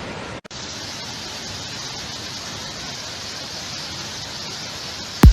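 Steady rush of floodwater pouring over the Gariep Dam spillway, with a brief break about half a second in. A sudden loud burst at the very end.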